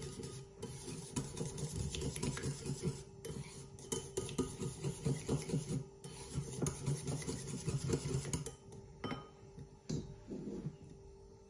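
A small wire balloon whisk beating egg yolks in a ceramic bowl: rapid clicking and scraping of the wires against the bowl. It slows to a few separate clicks near the end.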